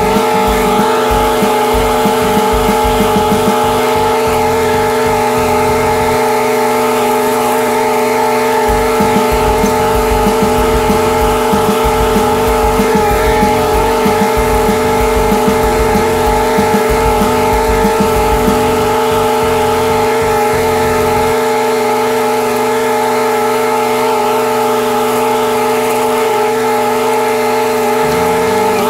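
Commercial lawn mower's air-cooled engine running steadily at working speed, heard close up.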